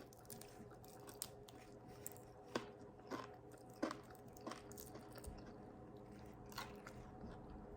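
A person chewing food close to the microphone: faint, scattered clicks and crunches a few times over several seconds, with a faint steady hum behind.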